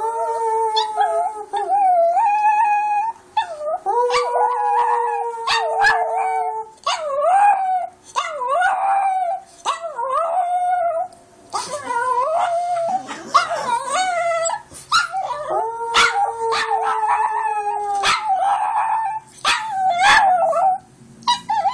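Chihuahua howling over and over in long, wavering howls with short yips between them. A person's steady, lower howl joins in three times, and the dog howls along with it.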